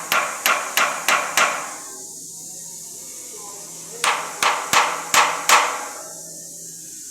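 Hammer blows on a compressor casing in two quick runs of about five strikes each, roughly three a second, each with a short ring. The hammering drives out air trapped in the silicone around the stud bolts so the casing seats further down.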